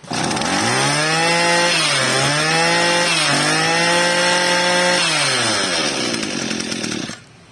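26cc two-stroke brush cutter engine revved to high speed, held there with two brief dips in revs, then the throttle let off about five seconds in so it falls back toward idle; the sound stops abruptly near the end.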